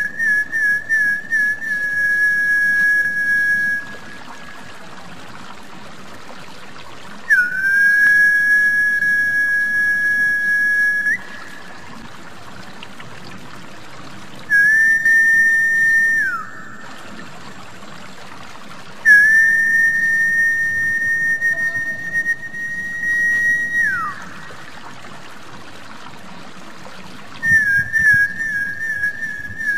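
Whistling played as a lure call for snakehead fish: high whistled notes in groups, warbling at the start and near the end, with long held notes between, two of them ending in a falling glide. A steady trickle of water runs underneath and fills the pauses.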